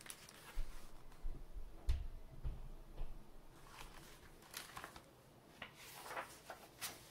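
Handling of a paper picture book: soft rustles and light taps of the pages and cover, with a few low bumps in the first few seconds as the book is lifted and moved.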